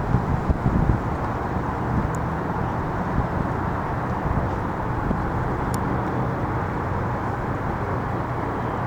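Steady outdoor city noise with distant traffic, wind buffeting the microphone in gusts during the first second.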